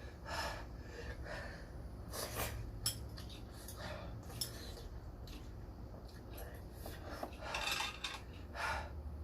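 Eating sounds: utensils clicking a few times against a bowl while a man breathes hard and sniffs, his nose running from very spicy ramen.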